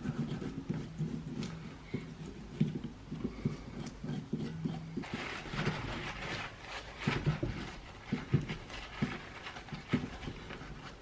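Irregular light taps and clicks of a hand tool working on a greasy typewriter wheel mechanism, giving way about halfway through to scrubbing.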